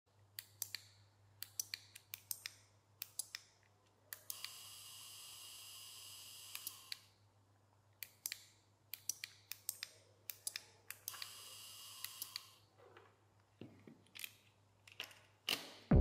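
Relays on a relay module clicking on and off in quick clusters, and a small DC gear motor whirring steadily for about three seconds, twice, switched on and off by a relay.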